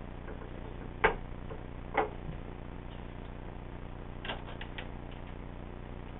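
Glass jar knocked down onto a bathroom sink counter: two sharp knocks about a second apart, then a quick run of small light clicks around four seconds in, over a steady low hum.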